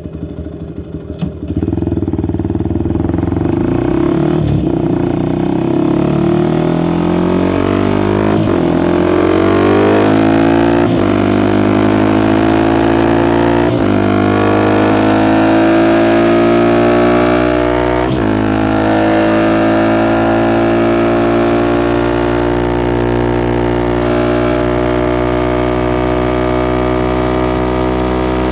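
Suzuki Gixxer SF 250's single-cylinder engine through a Yoshimura R11 exhaust, opened up hard about a second and a half in and pulling through several quick upshifts, the pitch climbing and dropping back at each gear change. After that it runs at a fairly steady cruise.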